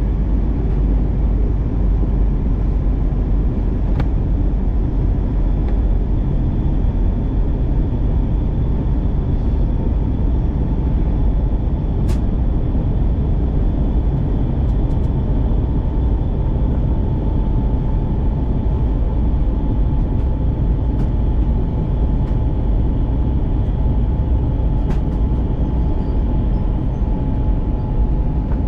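Cabin noise inside an Airbus A321-211 airliner in flight: a steady deep rush of airflow and engine noise, with a faint steady whine that grows a little stronger about halfway through.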